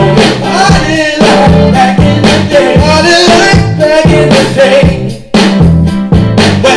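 A recorded song playing: singing over a steady beat and bass line.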